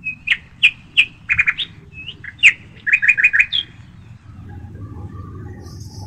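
A bird chirping: a string of short, sharp, high chirps, with a quick run of four about three seconds in, after which the calls stop.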